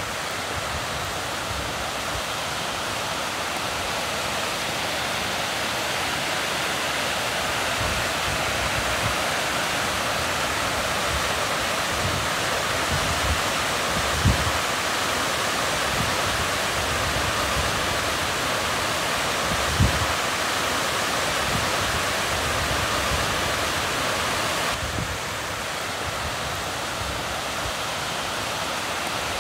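Steady rushing of a fast mountain river, with two brief low thumps in the middle and a slight drop in level near the end.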